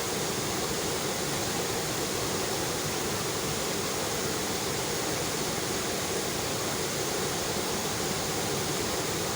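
Waterfall: water falling and rushing steadily, an even unbroken sound.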